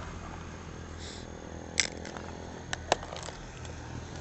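A steady low rumble of road traffic, with a few short sharp clicks about two and three seconds in.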